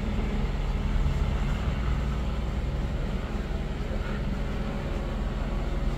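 Vehicle engine idling: a steady low hum.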